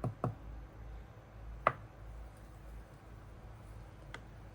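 A few light clicks and knocks from small chainsaw parts and tools being handled during disassembly, the sharpest about a second and a half in, over a low steady hum.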